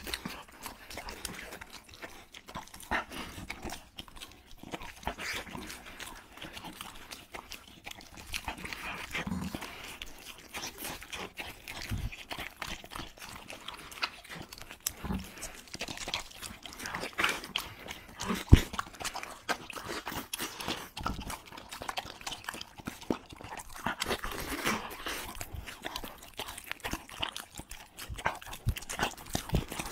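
Close-up eating sounds of a beagle and a person chewing large braised pork meatballs: wet smacking, licking and chewing with many small irregular clicks. One sharper click or knock about two-thirds of the way through.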